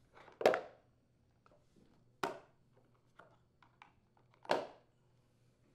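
Plastic rear wheel covers of a Craftsman walk-behind mower snapping off as a flathead screwdriver pries them loose: three sharp snaps about two seconds apart, with faint clicks and scrapes between.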